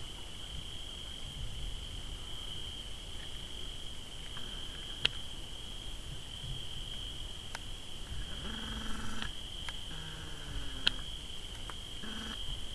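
Crickets trilling steadily, with about five sharp cracks from a distant fire popping. A short low call comes a little after the middle.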